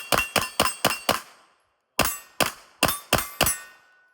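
A 9mm pistol firing two quick strings of five shots, about four a second, with a pause of almost a second between them. Each shot carries a short metallic ring.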